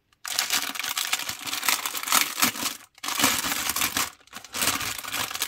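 Clear plastic bag crinkling and rustling as it is handled and opened, the small plastic bags of resin diamond-painting drills inside shifting against it. The crackle runs almost continuously, with two short breaks about three and four seconds in.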